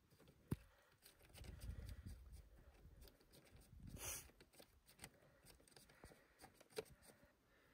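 Near silence: faint clicks and handling noises, with one sharper click about half a second in and a short hiss about four seconds in.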